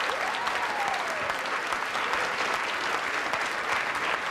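Studio audience applauding, a dense steady patter of many hands clapping.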